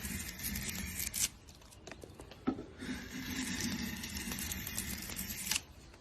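A tool cutting wood in two long, continuous strokes of about three seconds each. Between them there is a short pause with a sharp tap.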